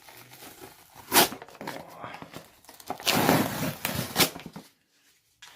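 A package being opened by hand. There is a sharp snap about a second in, then a longer tearing rip of the packaging a few seconds in, with another snap near its end.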